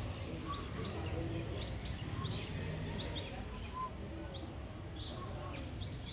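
Small birds chirping over and over in short high notes, above a steady low background rumble of street noise.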